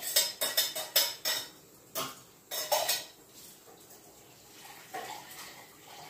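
A metal utensil clinking and knocking against a stainless steel cooking pot: a quick run of about six clinks in the first second and a half, then a few more strikes, one of them ringing, around two to three seconds in.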